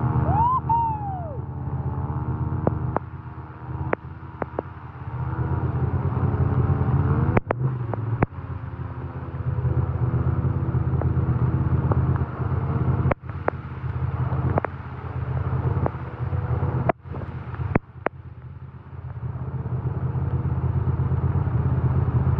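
A quad bike's engine running and revving up and down as it drives through fast-flowing floodwater, over a steady low rumble. There are several sharp clicks and brief dropouts, and a short whistle-like glide rises and falls about half a second in.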